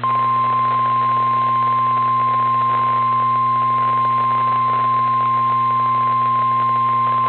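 NOAA Weather Radio warning alarm tone: a single loud, steady, high-pitched beep held unbroken, heard through a radio receiver over a low hum and hiss. It is the alert that announces a tornado warning broadcast.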